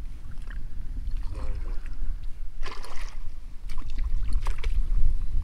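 Water splashing in the shallows as a hooked zander is landed by hand, with a few short splashes in the middle, over a steady rumble of wind on the microphone.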